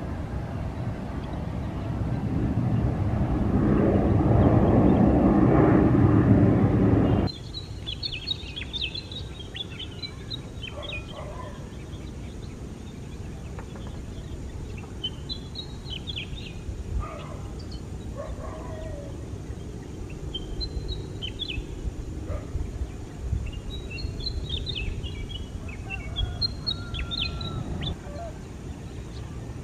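Jet airliner's engines running, growing louder to a peak about five or six seconds in and then cut off abruptly about seven seconds in. After that, small birds chirp over a low steady rumble.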